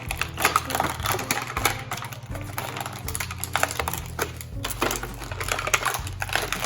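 Irregular plastic clicks and snaps of a small Transformers BotBots toy figure's parts being handled and twisted into shape.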